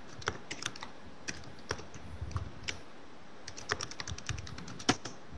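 Typing on a computer keyboard: irregular key clicks, a quicker run of keystrokes near the end and one louder keystroke just before it ends.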